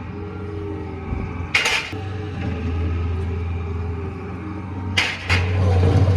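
Engine idling steadily underneath, with a sharp metal clank about a second and a half in and two quick clanks near the end, as of steel fence posts being dropped onto a pile.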